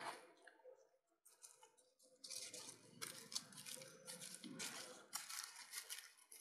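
Faint scratchy rustling and crackling in short irregular bursts, thicker from about two seconds in.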